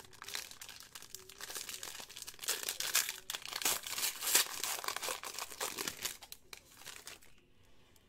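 Foil trading-card pack wrapper crinkling as it is opened and handled, a dense crackly rustle that dies down about seven seconds in.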